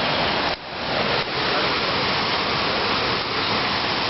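Steady rush of water from a waterfall, with a brief dip about half a second in.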